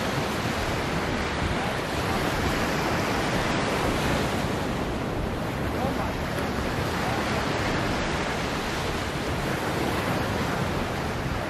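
Surf breaking on a sand beach, mixed with wind on the microphone: a steady, even rush of noise with no distinct events.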